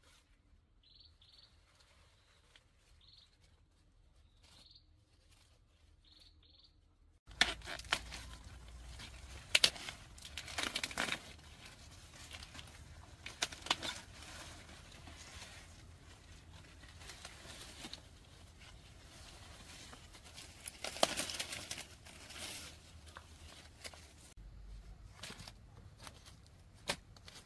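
A bird chirps faintly a few times in near quiet. About seven seconds in, corn leaves start rustling and crackling as ears of corn are pulled off the stalks by hand, with several sharp snaps and husks tearing.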